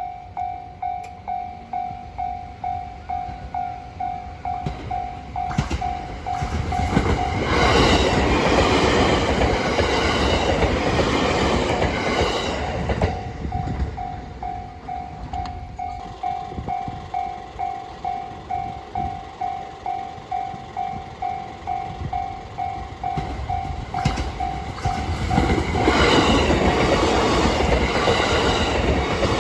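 Japanese railway level-crossing warning bell ringing steadily, about two electronic dings a second: the crossing is closed for trains. A train passes through about a quarter of the way in, with rolling wheel and rail noise that covers the bell for several seconds, and a second train starts passing near the end.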